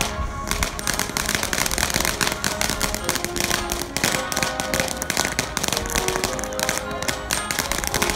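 Background music over a ground fountain firework crackling as it sprays sparks: a dense, continuous crackle of tiny pops.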